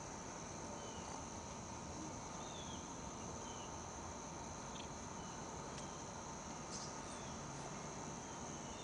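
Crickets trilling steadily outdoors, a continuous high-pitched insect chorus, with short falling chirps now and then.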